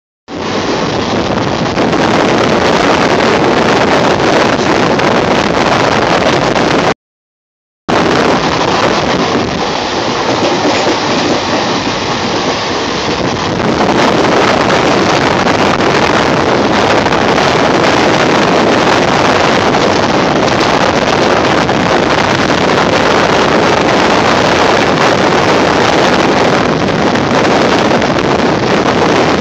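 Loud, steady rush of wind buffeting the phone's microphone over the running noise of a moving passenger train, heard from its open doorway. The sound cuts out completely for just under a second about seven seconds in.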